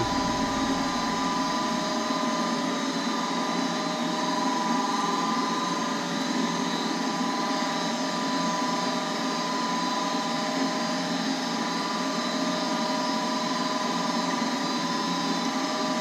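Goodman gas furnace's draft inducer fan motor running steadily: a constant whirring hum with several steady tones. The pressure switch is jumped out, so the furnace moves on through its pre-ignition stage while the igniter heats.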